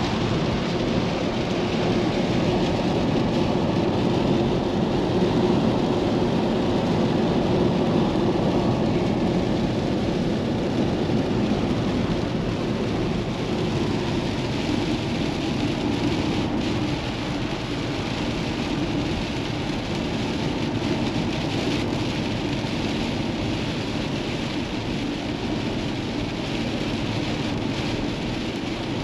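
Steady cabin noise of a motorhome driving at speed on a wet motorway in heavy rain: tyres hissing through the standing water, rain on the body and windscreen, and the engine's drone underneath.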